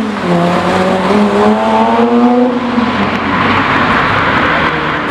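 Porsche 911 GT3 Touring's flat-six engine pulling away on the throttle, holding one engine note for about two and a half seconds, then giving way to a loud rushing sound of the car going by.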